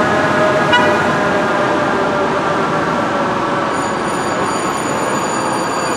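Fire engine air horn blowing a held chord of steady tones over city traffic noise, the chord slowly dropping in pitch and fading as the engine moves away.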